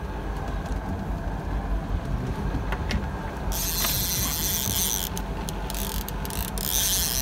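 A fishing reel's ratchet buzzes loudly from about three and a half seconds in, breaking off briefly a few times, as a fish pulls on the bent trolling rod. Under it the boat's engine hums steadily.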